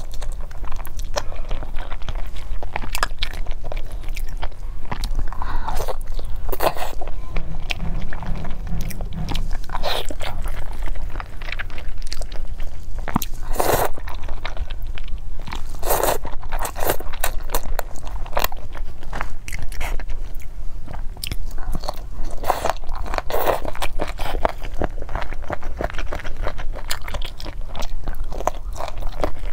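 Close-miked eating sounds: biting and chewing grilled eel and thick spicy noodles, with many short wet clicks of chewing and noodles slurped in now and then.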